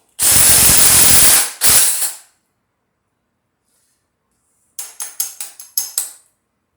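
Loud hiss of compressed air in two bursts, the first over a second long and the second shorter. Near the end come about seven quick, sharp metal clicks.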